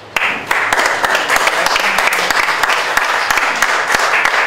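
A crowd applauding: a dense run of hand claps breaks out suddenly just after the start and keeps going steadily.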